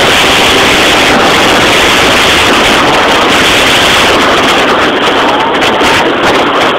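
Yamaha Jog RR two-stroke scooter with a Hebo Manston cylinder kit running hard while riding, its engine largely buried in loud rushing wind noise. About five seconds in the noise eases slightly and the engine's rising pitch shows through faintly.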